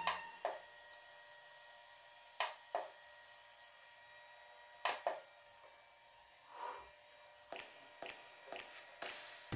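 Home IPL hair-removal handset clicking as it fires its light pulses against the skin: about a dozen short sharp clicks at uneven spacing, some in quick pairs and several close together near the end. Under them is a faint steady whine from the switched-on device.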